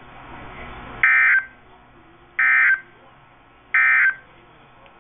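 NOAA Weather Radio SAME digital data code played through a weather radio's speaker: three short, identical bursts of warbling data tone about a second and a half apart. Coming straight after an alert's last line, this is the end-of-message code that closes the alert.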